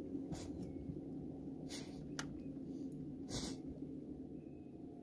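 Quiet outdoor ambience: a low steady rumble, broken by three brief soft rustling noises and one small click.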